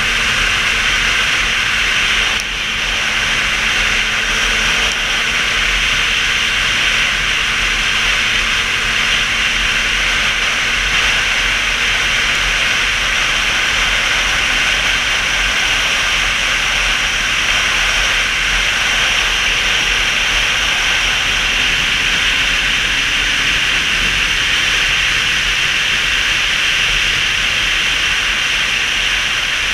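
Motorcycle cruising at steady speed on the open road: a loud, steady rush of wind over the camera microphone, with a faint, even engine drone underneath.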